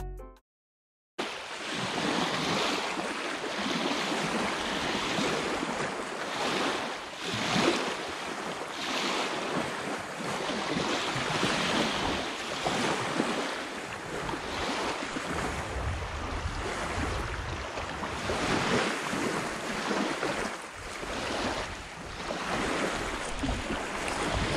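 Small lake waves lapping and washing over and over onto a pebble shore, with wind rumbling on the microphone. It starts after a second of silence.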